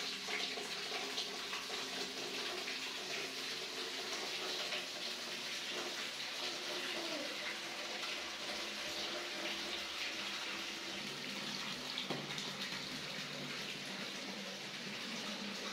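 Water running steadily from a shower head into a plastic basin, a continuous splashing rush.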